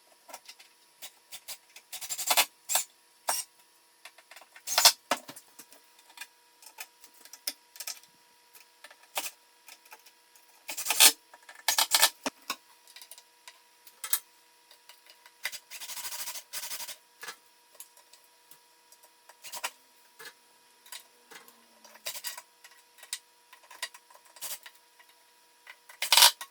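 Irregular clicks, knocks and short scrapes of small metal hardware being handled and fitted: antique brass cabinet pulls being screwed onto cupboard doors.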